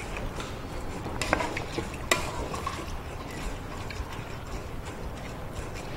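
Raw rice, water and shredded burdock being stirred in a metal rice-cooker inner pot, a soft scraping with a few sharp clicks.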